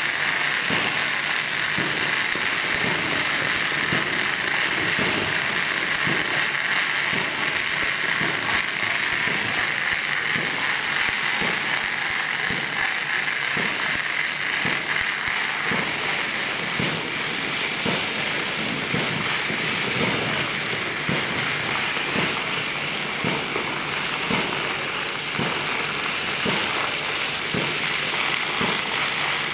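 Steady hiss of foam spraying from a hose lance, with rapid, irregular crackling mixed in.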